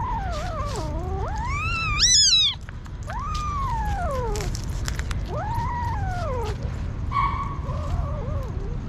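Hungry kittens meowing over and over, about four drawn-out meows that rise and fall in pitch. The loudest rises to a shrill cry about two seconds in.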